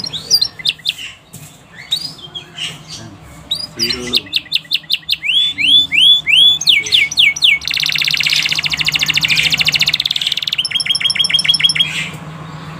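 Domestic canary singing. After a few scattered chirps, it gives a run of repeated slurred whistles, then a fast rolling trill lasting about three seconds, then a quick series of sharp repeated notes near the end.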